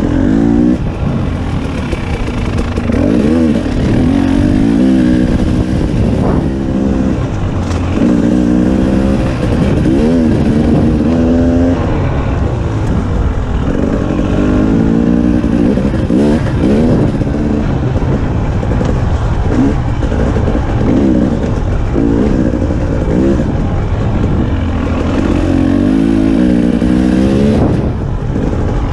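KTM 300 XC-W TPI two-stroke single-cylinder dirt bike engine under way, revving up and easing off again and again, a rise in pitch every two or three seconds as the throttle is worked.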